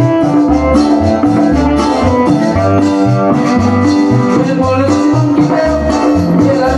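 Latin American dance music from a band, with a steady repeating bass pattern under sustained melody notes.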